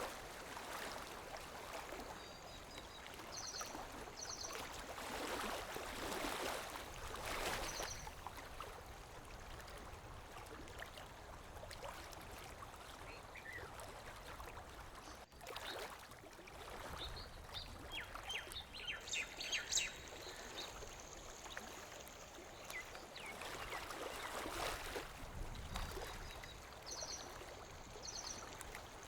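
Lake water lapping gently at the shore in slow swells. Small birds chirp over it, with short high trills near the start and near the end and a brief flurry of chirps about two-thirds of the way through.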